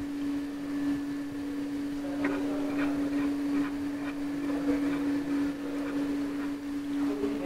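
Conventional milling machine giving a steady hum. From about two seconds in come light, intermittent scraping and ticks as the table is shifted under the HSS end mill to check that the workpiece is flat.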